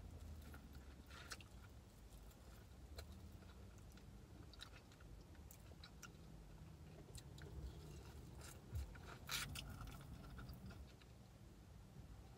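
A person biting into and chewing a breaded boneless chicken wing, with faint mouth sounds and scattered soft clicks; the sharpest clicks come about nine seconds in.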